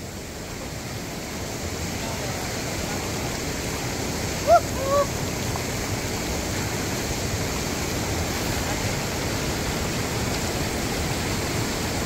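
Steady rush of fast-flowing river water over rocks, growing a little louder over the first few seconds, with one short shout about four and a half seconds in.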